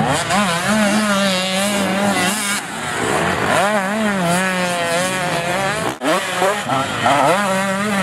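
Two-stroke dirt bike engines revving, the pitch climbing and dropping again and again as the throttle is worked, over a steadier lower engine note. There is a brief break about six seconds in.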